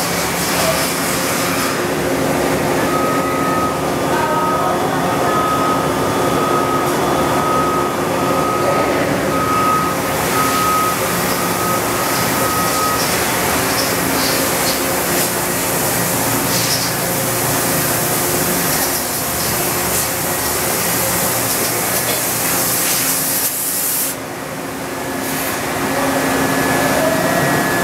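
A powered-up OKK HM100S horizontal machining center running: a steady hum with an even hiss, and a thin high whine that sounds for about ten seconds before stopping. Near the end the hiss briefly drops away, then returns.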